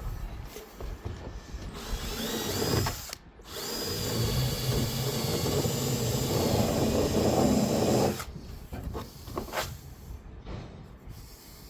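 Handheld power tool, drill-type, running briefly, stopping, then running steadily for several seconds with a high whine as it shaves out the edge of a hole cut in a plastic kayak hull to widen it.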